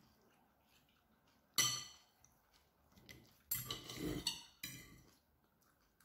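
Metal knife and fork clinking and scraping against a ceramic plate while cutting fish: one sharp clink about a second and a half in, then a cluster of clinks and scrapes around the middle.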